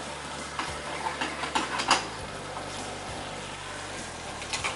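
Sauce sizzling in a small frying pan on a gas burner while a wooden spatula stirs it, with a run of sharp knocks and scrapes of the spatula against the pan, loudest about two seconds in, and a few more near the end.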